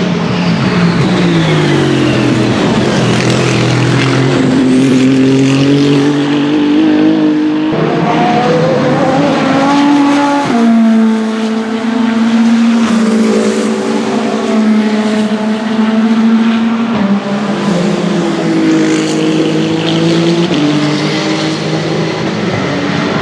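Race car engines at speed on track, one car after another, their notes falling and rising through gear changes. About ten seconds in, the pitch jumps suddenly.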